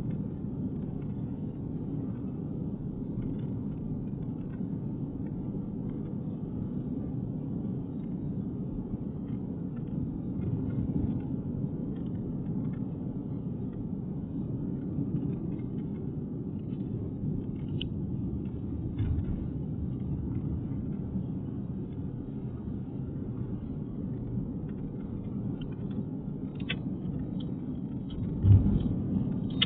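Steady low road and engine rumble of a car driving, with a sudden louder thump near the end.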